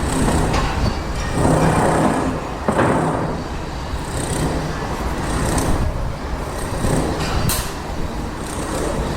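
Construction site ambience: heavy machinery engines running steadily, with a low drone throughout. Brief high hisses come several times, and sharp knocks sound about three seconds in and again near the end.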